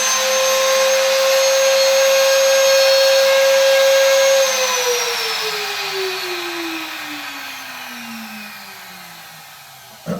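Rotex random-orbital sander running at a steady speed on a Corian countertop, then switched off about four seconds in and winding down with a falling whine. A sharp knock comes right at the end.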